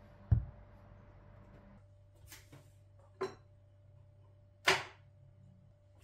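Kitchen handling sounds: a heavy low thump about a third of a second in, then a faint click and two sharp knocks, the last nearly as loud as the thump, over a faint steady hum.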